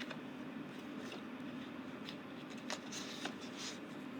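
Quiet room tone with a steady low hum, and a few soft paper rustles about three seconds in.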